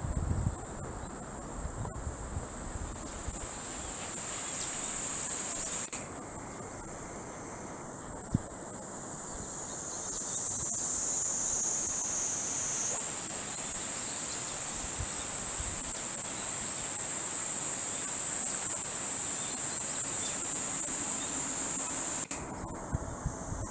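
Cicadas buzzing in a steady, high, unbroken drone. A broader, lower rasp from more insects joins in and drops out again, falling away about six seconds in and again near the end.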